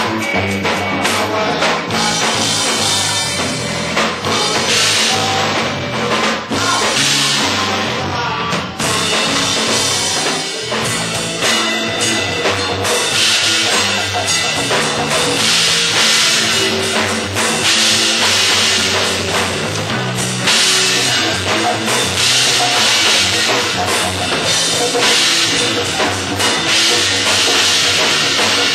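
Live funk band playing, driven by a drum kit with hand-played congas.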